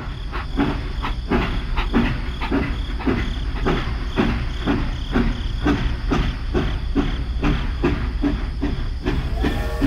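Battery-powered toy steam locomotive running along plastic track: a steady motor rumble with a rhythmic chuff-and-clack several beats a second over a hiss. A higher tone joins in near the end.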